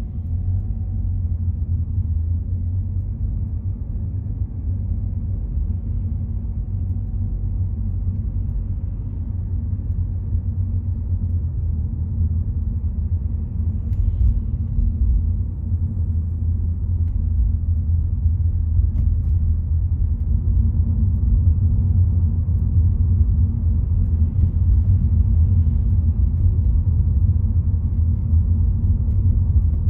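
Steady low rumble of a car driving along a road, mostly engine and tyre noise, growing slightly louder toward the end.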